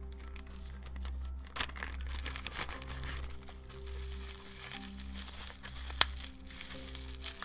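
Bubble wrap crinkling and crackling as it is pulled and torn open by hand, with one sharp snap late on. Soft background music with held tones runs underneath.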